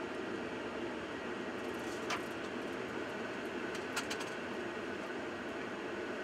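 Steady rush of airflow and engine noise inside a Boeing 717's cockpit on approach with the landing gear down, with two short clicks about two and four seconds in.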